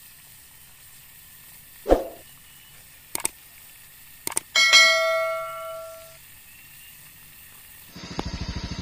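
Intro sound effects over a steady hiss: a sharp hit about two seconds in, then two quick double mouse clicks and a bell chime that rings out for about a second and a half, the 'subscribe and ring the bell' effect. Near the end a motorcycle engine's fast pulsing comes in.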